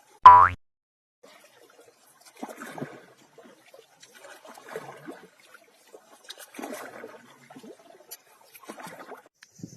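A cartoon-style 'boing' sound effect just after the start, followed by four short bouts of water trickling and splashing about two seconds apart.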